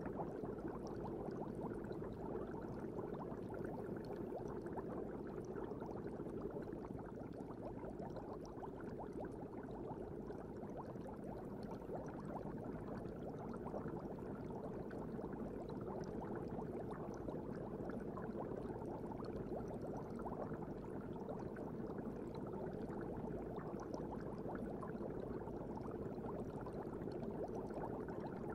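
Steady bubbling water ambience of an aquarium tank, a dense fizzing over a low hum, unchanging throughout.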